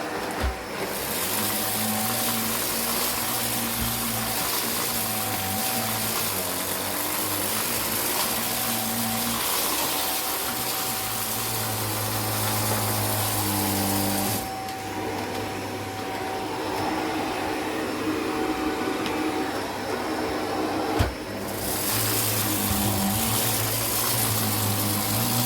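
Vacuum cleaner running steadily. Its high hiss drops away for about six seconds midway, then comes back with a sharp knock.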